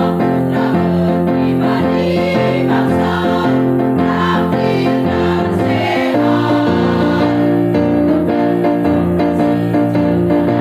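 Women's choir singing in parts, holding notes that change every second or so, over sustained low accompaniment notes; the music moves into a new phrase about six seconds in.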